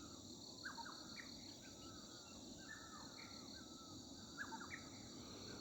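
Faint outdoor nature sound: a steady high insect chorus of crickets, with a bird giving short whistled calls over and over, several sliding down in pitch.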